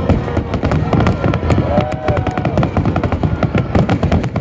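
Large aerial fireworks display going off non-stop: dense, rapid bangs and crackles overlapping one another, over a continuous deep booming.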